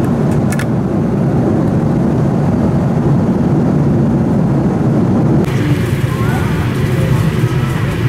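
Airbus A330-300 cabin noise in flight: a steady, deep roar of engines and airflow. About five and a half seconds in, a brighter hiss joins it.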